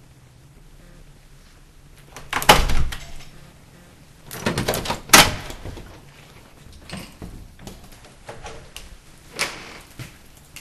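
A door being handled and opened: several loud knocks and rattles, the loudest about two and a half seconds in and again around five seconds.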